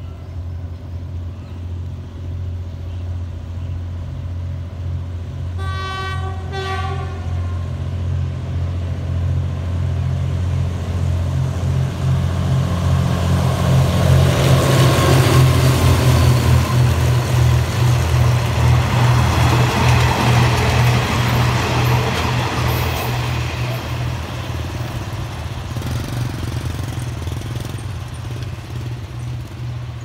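GEK-class diesel-electric locomotive 4018 hauling a passenger train past: a steady low engine drone as it approaches, a horn blast of about two seconds around six seconds in, then the loudest moment as it passes close, about halfway through. After it passes, the coaches roll on along the rails and the sound fades.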